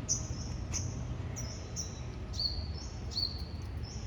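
A small animal chirping: a run of short high chirps, each stepping down in pitch, coming roughly twice a second over a steady low background rumble.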